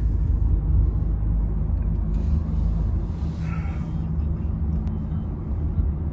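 Steady low rumble of a Toyota taxi on the move, heard from inside the cabin: engine and road noise.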